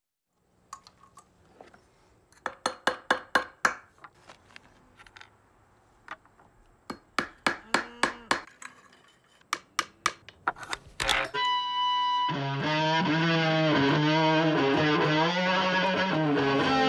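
Sharp knocks in quick runs of several strikes each, then a brief steady whine, then a distorted electric guitar played with notes sliding up and down in pitch.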